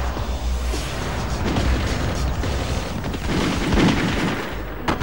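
Film gunfire in a shootout, shots and booms over dramatic action music.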